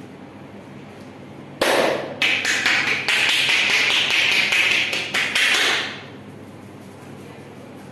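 A massage therapist's hands tapping and slapping rapidly on the body in a quick run of strokes. It starts about one and a half seconds in and lasts about four seconds.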